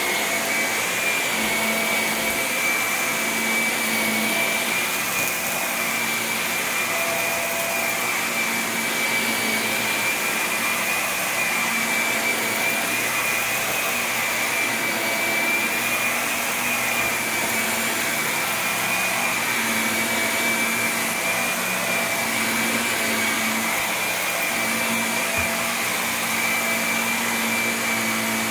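Upright bagless vacuum cleaner running steadily as it is pushed over carpet: a high, steady motor whine over the rush of air.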